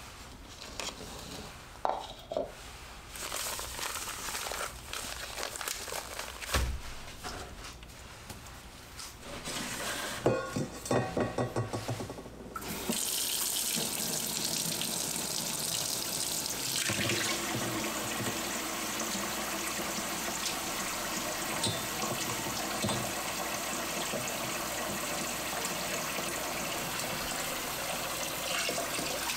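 Scattered knocks and handling sounds of a plastic pitcher on a workbench, with a quick run of clicks about ten seconds in. From about thirteen seconds a kitchen faucet runs steadily into a stainless steel bowl in the sink, with a plastic pitcher then held under the stream.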